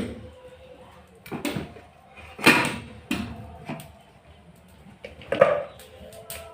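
Kitchen dishes and utensils clattering and knocking, a handful of separate clanks with some metallic ringing.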